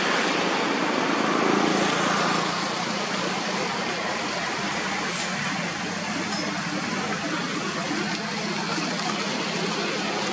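Steady outdoor city background noise, a wash of distant road traffic, a little louder for the first couple of seconds.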